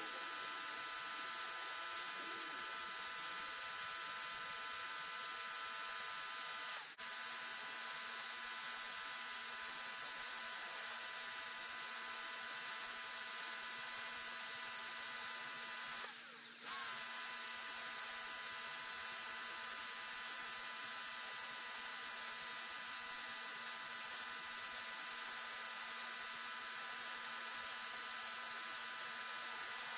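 Electric pressure washer running steadily with a hiss of spray, briefly cutting out twice, about seven seconds in and again about sixteen seconds in.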